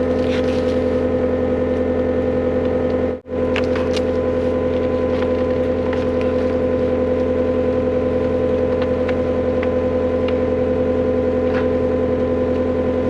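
Heavy-equipment engine running steadily at a constant speed, with a few faint knocks, broken by a momentary dropout about three seconds in.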